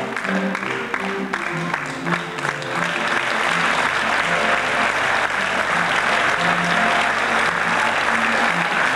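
Theatre audience applauding, the clapping swelling about three seconds in and then holding steady, over the accordion band's amplified music which goes on beneath it.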